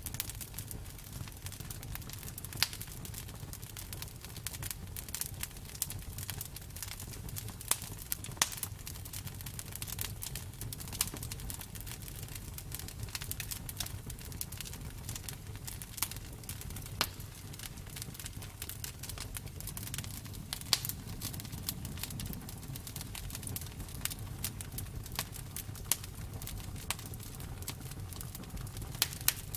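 Campfire burning with a steady low rumble and frequent sharp, irregular crackles and pops of burning wood.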